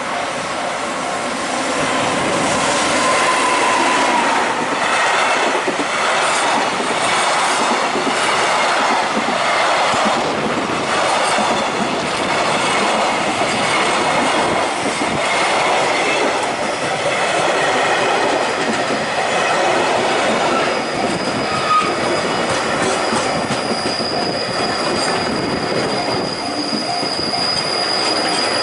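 A train running past close by: a long, steady rumble and clatter of wheels on the rails, with a thin, high, steady wheel squeal in the last few seconds.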